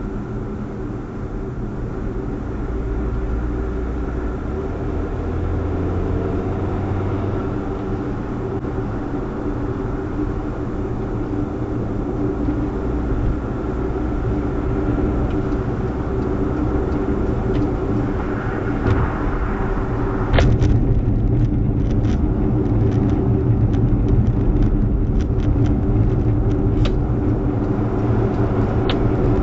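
Road and engine noise of a moving car, picked up inside the cabin, steady and slowly getting louder as the car gathers speed. About two-thirds in there is a sharp knock, followed by scattered short ticks.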